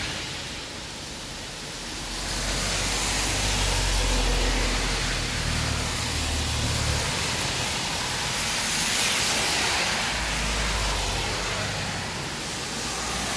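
Heavy rain falling in a steady hiss, with cars now and then swishing past on the wet road as a low rumble that swells and fades, twice.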